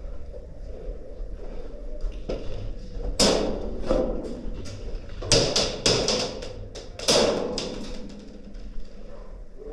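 Airsoft gunfire during a game: a run of sharp cracks and knocks, a few single ones then a quick cluster in the middle, each with a short ringing tail.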